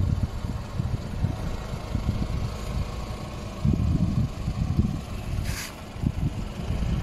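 Ford EcoSport's engine running low as the car rolls slowly over a dirt track, an uneven low rumble, with a brief hiss about five and a half seconds in.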